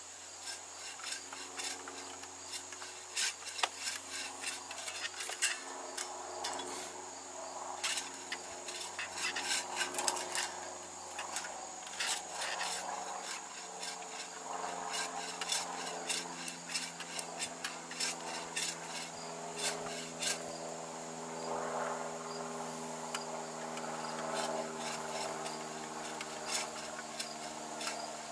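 Bow saw cutting through a tree trunk by hand, in rasping strokes, with crickets chirping steadily behind.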